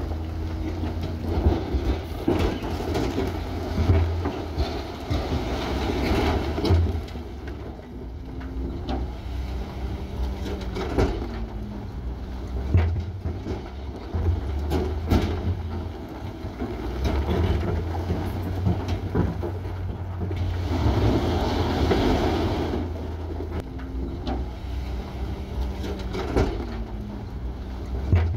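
Heavy diesel earthmoving machinery running under load: a steady low engine rumble with scattered knocks and clanks. A louder rushing stretch comes about three-quarters of the way through.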